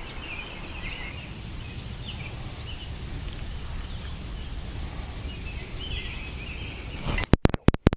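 Lakeside morning ambience: scattered bird chirps over a steady high insect drone that comes in about a second in, with a low rumble underneath. Near the end, a rapid run of sharp, loud clicks and knocks.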